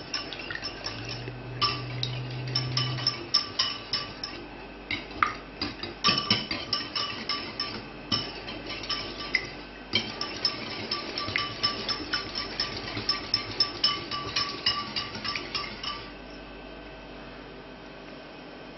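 Wire whisk beating raw eggs in a ceramic bowl, the wires clinking quickly and unevenly against the bowl's sides. It pauses briefly a few times and stops a few seconds before the end.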